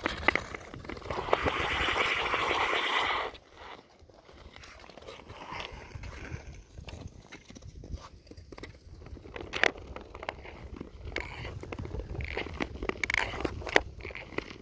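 Nordic touring skates scraping over sea ice: a loud, steady scrape for about three seconds that stops abruptly, followed by quieter scrapes with scattered sharp clicks that grow busier near the end.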